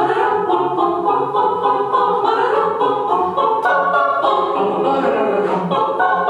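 Choir singing a cappella without words, a quick passage of short detached sung notes over a regularly pulsing low bass part: voices imitating instruments in a classical piece.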